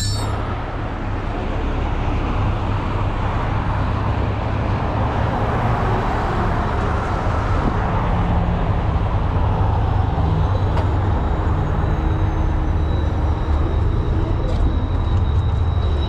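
A heavy tow truck's engine running steadily with a low, even hum. A faint high whine joins in over the last few seconds, with a few light clicks near the end.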